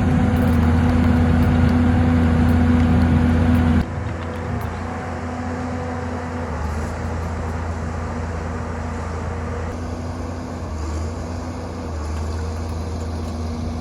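John Deere 690D-LC excavator's diesel engine running steadily, louder for the first four seconds, then dropping to a lower, even level for the rest.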